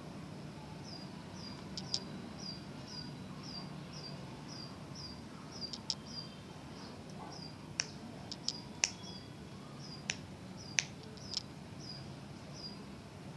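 A small bird chirping: a short, high chirp repeated about twice a second, with a few sharp clicks in between.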